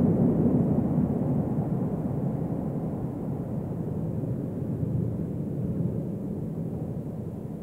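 1934 Siemens electric subway train running away down the tunnel, its low rumble fading steadily as it goes.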